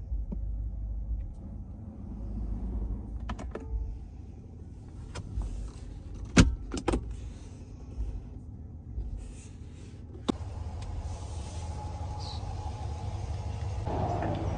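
Hard plastic clicks and knocks from a 2023 RAM 1500's center console lid and storage tray latches as they are opened and handled, with the loudest knock about halfway through, over a low steady rumble. After about ten seconds a steady outdoor hiss takes over.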